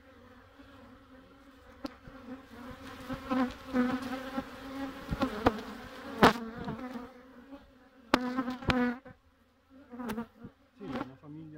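Honey bees buzzing around an open hive: a steady hum, with single bees flying close past the microphone, their pitch rising and falling as they pass. There are a few sharp taps, the loudest a little after the middle. The colony is one the beekeeper calls particularly aggressive.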